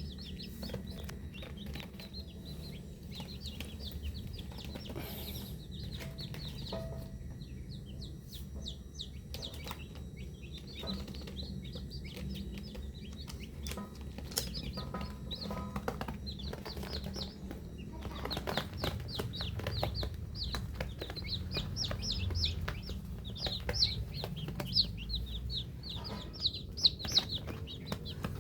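Many baby chicks peeping: short, high, falling chirps in quick succession, growing busier in the second half over a steady low hum, with scattered light clicks.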